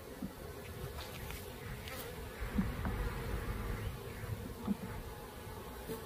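Honey bees buzzing in flight around an open hive box, with a couple of brief louder buzzes as single bees pass close.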